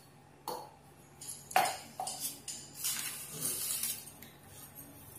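A few light knocks and clinks of kitchen containers and utensils being handled and set down on the counter.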